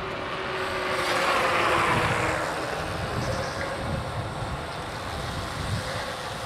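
A vehicle passing close by: its noise swells about a second in and fades away by three seconds, over a steady background rumble of traffic.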